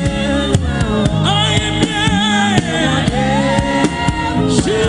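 Live gospel praise-and-worship music: a lead singer with a group of backing singers, over a band with a steady beat.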